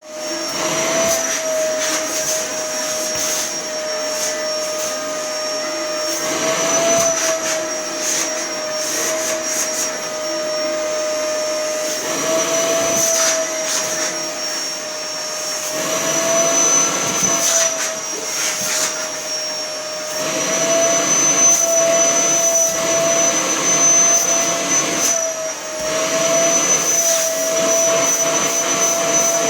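Vacuum cleaner running continuously, a steady motor whine over rushing air, its pitch lifting briefly every few seconds.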